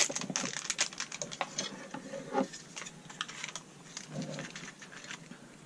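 Rapid small clicks and rustles of a plastic candy-kit packet and tray being handled as powder goes into the bowl, with a couple of brief murmurs.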